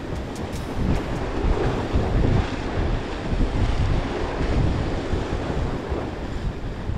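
Sea waves washing against a rocky shore, with wind buffeting the microphone in a steady low rumble.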